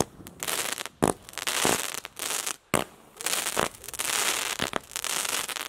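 Multi-shot consumer firework cake firing a volley: a sharp launch pop about once a second, with the comets' tails hissing and crackling in between.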